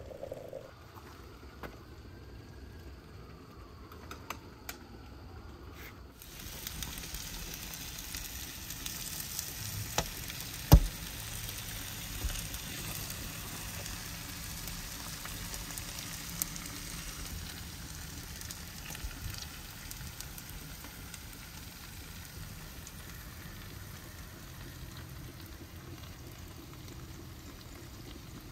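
Whole branzino and vegetables sizzling in cast-iron pans in a wood-fired brick oven, a steady sizzle that sets in about six seconds in, dotted with sharp crackles; one loud pop about eleven seconds in is the loudest sound.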